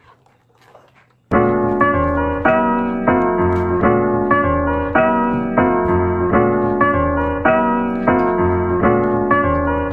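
Background piano music with a steady, even rhythm of chords, cutting in suddenly about a second in.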